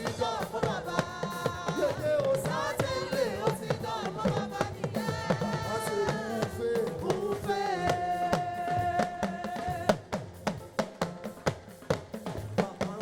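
Gospel praise band music: a voice sings long held, wavering notes over a drum kit. About ten seconds in, the singing stops and the drums carry on alone.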